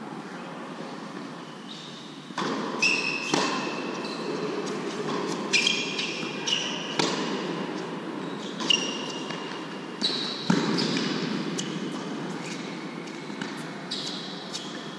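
Tennis ball bouncing on an indoor hard court and being struck by rackets: a string of sharp knocks about a second apart that echo in the hall, with short high squeaks of tennis shoes on the court between them.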